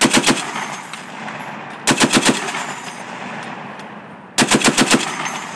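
M2 .50 caliber heavy machine gun on a HMMWV firing three short bursts about two seconds apart, the last the longest at six or seven rounds. Each burst echoes across the range as it dies away.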